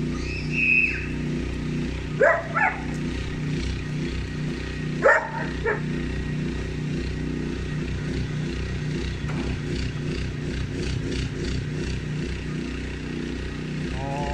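A dog barking: two pairs of short barks about three seconds apart, over a steady low hum.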